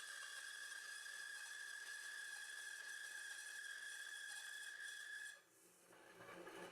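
Band saw converted for metal cutting running free with a steady high whine over a hiss, which cuts off abruptly a little over five seconds in.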